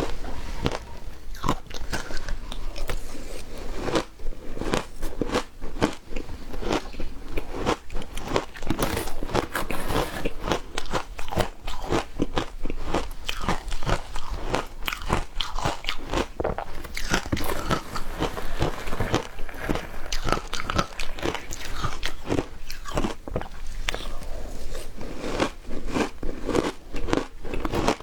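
Frozen matcha ice being bitten and chewed: a rapid, continuous run of crunches, several a second.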